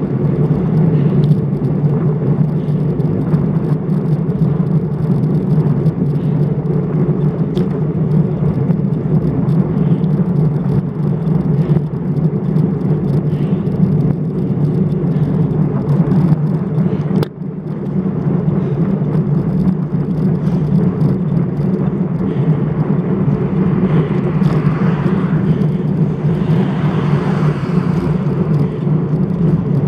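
Wind rushing over a bike-mounted action camera's microphone, mixed with road noise from a road bike being ridden: a steady, loud, low rumble that dips briefly once about two thirds of the way in.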